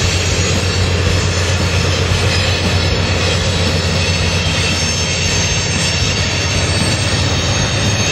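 Diesel locomotives of a Norfolk Southern freight train running steadily as they haul a train of covered hoppers, a loud, even drone with a low hum.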